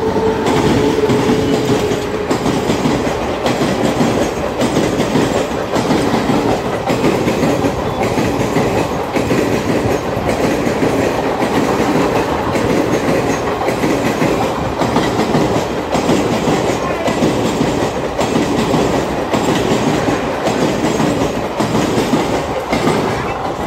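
A WAP-7 electric locomotive and its train of ICF coaches running through a station close by, the wheels clattering rhythmically over the rail joints as coach after coach passes. The tail of a horn note fades out in the first second.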